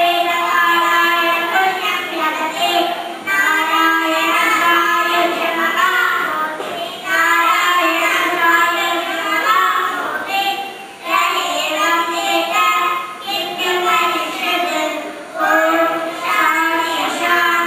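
A small group of young girls singing a prayer song in unison into microphones, in phrases of about four seconds with short breaks between them.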